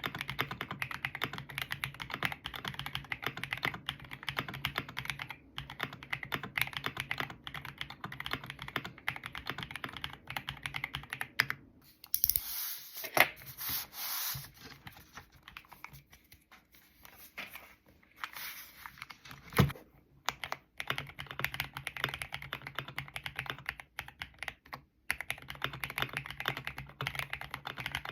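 Akko MOD007 PC (polycarbonate-case) mechanical keyboard with Piano V3 Pro switches being typed on quickly, a rapid run of key clacks. In the middle the typing thins to fewer, separate keystrokes for several seconds, then the fast typing resumes.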